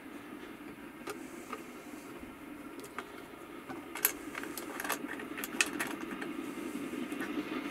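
Screwdriver tightening the clamp screws of a metal angle-iron bending jig: scattered small metallic clicks and scrapes, the sharpest about four seconds in, over a steady low hum.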